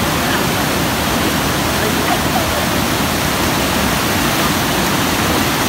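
Swollen, fast-running river water pouring over and through the bamboo slats of a fish weir (yana), a loud, steady rush of churning water.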